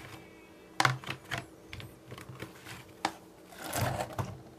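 Thin clear plastic sheet crinkling and crackling in a few irregular sharp clicks as it is peeled away from a sticky jelly slime casting, with a longer rustle near the end.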